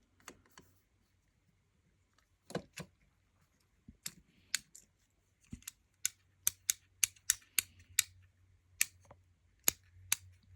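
Fidget cube's buttons and switches being clicked: sharp, irregular clicks that start about two and a half seconds in and come quickest, around two a second, in the middle.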